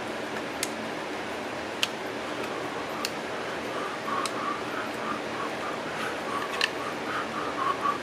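Long screwdriver turning the long screw in the end housing of a Singer 306K sewing-machine motor: a few sharp metal clicks, then from about halfway a quick, uneven run of short grating sounds as the screw turns in its threads.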